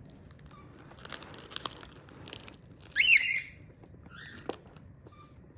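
Plastic packaging crinkling and tearing, broken about three seconds in by one short, loud cockatiel call that rises and falls in pitch.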